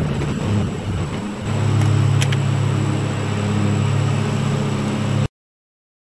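A vehicle engine running: a rumble that settles into a steady low hum about a second and a half in, with a faint click a little after two seconds. The sound cuts off abruptly to silence near the end.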